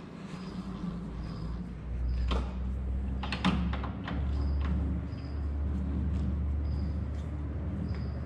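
Two-speed tailstock of a Monarch 610 lathe being worked by hand: the handwheel cranked and levers clunking, with sharp metal clicks about two and three and a half seconds in, over a steady low hum.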